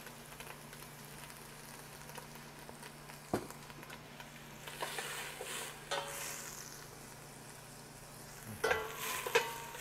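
Diced celery, carrots and onions (mirepoix) sizzling in butter in a stainless steel pot while being stirred, over a steady low hum. A few ringing metal clinks of utensil against pot come near the end.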